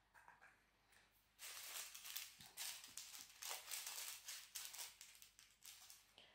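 Small plastic packets of square resin diamond-painting drills being handled: faint crinkling of the plastic and rattling of the loose drills, starting about a second and a half in and going on for several seconds.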